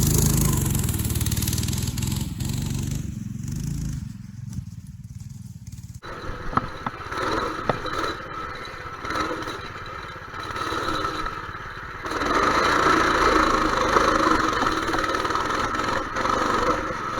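Dirt bike engine running and revving over several cut-together riding shots, with scattered knocks and clatter. The engine is loud at first, quieter for a stretch, and louder again about two-thirds of the way through.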